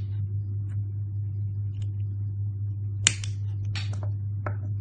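A sharp click about three seconds in, followed by a couple of short scraping strikes, over a steady low hum.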